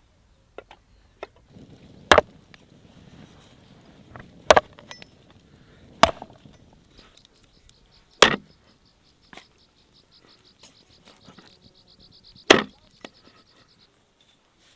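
A heavy cleaver chopping through a rack of raw ribs on a wooden chopping board: five sharp, loud chops at uneven intervals. Insects chirp in rapid pulses in the second half.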